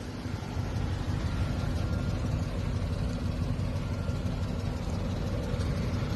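Car engine idling steadily, a low rumble that gets slightly louder about half a second in.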